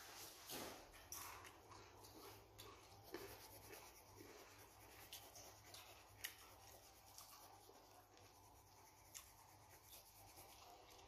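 Faint scratching of a coloured pencil shading on paper, with a few small ticks.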